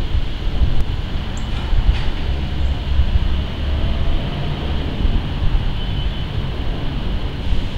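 Airbus A380's four jet engines passing overhead: a steady low rumble.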